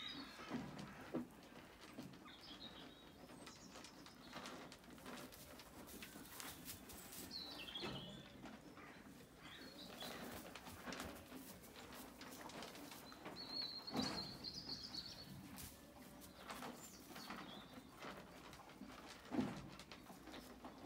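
Small birds chirping now and then, with a longer run of chirping about two thirds of the way in, over a few scattered knocks.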